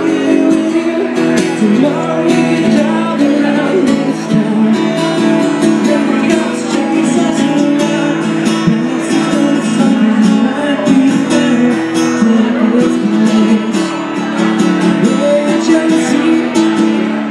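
Acoustic guitar strummed steadily under a singer's voice: a live song performance.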